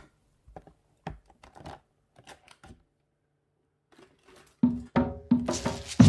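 Scattered light clicks and taps of plastic building bricks being handled. About two-thirds of the way in, background music with a steady drum beat starts and becomes the loudest sound.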